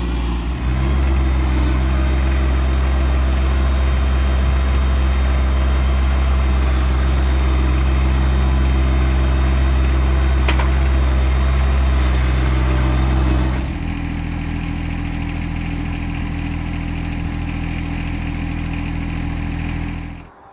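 Tractor engine running at high revs under load, dropping to a lower, quieter idle about two-thirds of the way through, then cutting off near the end.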